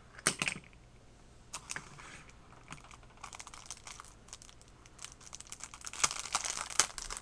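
A few sharp clicks and knocks, then the cellophane packaging of an iPod Touch case crinkling and crackling as fingers pick at and open the sealed plastic bag. The crinkling grows dense about three seconds in and is loudest near the end.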